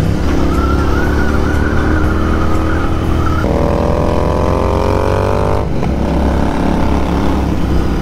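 Royal Enfield 650 parallel-twin motorcycle engine running on the road, climbing steadily in pitch as it accelerates from about three and a half seconds in and dropping back a couple of seconds later.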